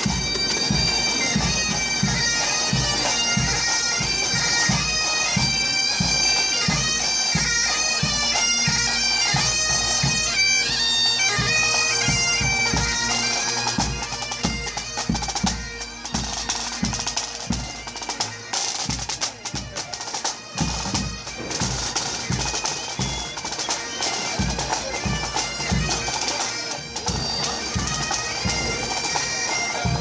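Bagpipes playing a marching tune over their steady drone, with drum beats keeping time. The pipes fade a little past the middle, then come back.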